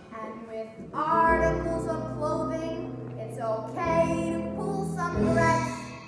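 A young female voice singing a musical-theatre song over instrumental accompaniment, in sustained phrases.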